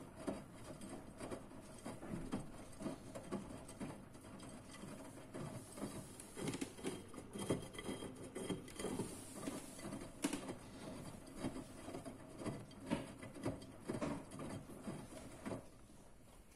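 Front-loading washing machine drum tumbling wet laundry in shallow water during the wash: irregular sloshing and splashing as the clothes lift and drop, going quiet near the end.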